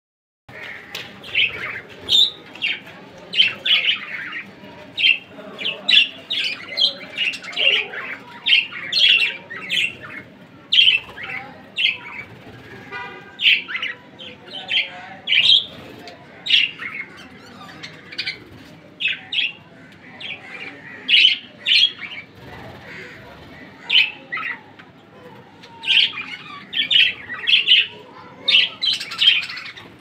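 A flock of budgerigars chattering: many short chirps and squawks, overlapping in quick succession.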